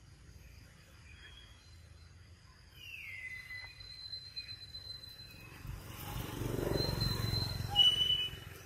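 Long-tailed macaques calling: a thin high squeak falling in pitch about three seconds in, then a louder rough, low grunting sound from about six to eight seconds.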